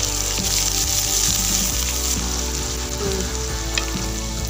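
Sliced onions frying in hot oil in a non-stick pan: a steady sizzle, with light taps of the spatula now and then.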